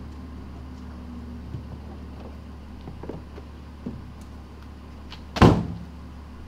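Minivan driver's door handled with a few light knocks and clicks, then slammed shut about five seconds in, the loudest sound, over a steady low hum.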